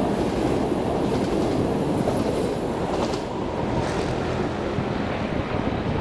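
Train wheels rolling on the rails as the last coaches run away beneath the bridge; a steady rumble that begins to fade after about three seconds.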